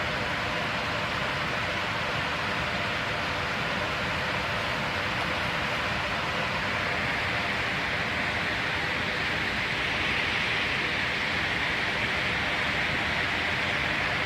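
Waterfall on flood-swollen Otter Creek: a steady, forceful rush of water that grows slightly brighter and hissier from about halfway through.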